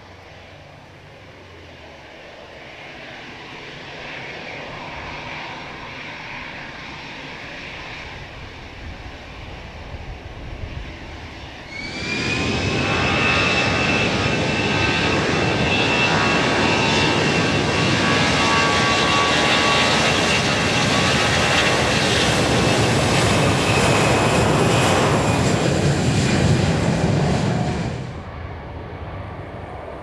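Jet airliner engines. A faint engine noise swells slowly at first, then a much louder engine noise with a steady high turbine whine starts suddenly about twelve seconds in and cuts off abruptly a couple of seconds before the end.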